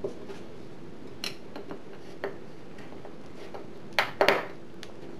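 A few light clicks of small parts and tools being handled on a wooden workbench, then a loud cluster of sharp metal clicks about four seconds in as a screwdriver tip is seated in a sheet-metal screw head and turned to tighten a wire lead. A steady hum runs underneath.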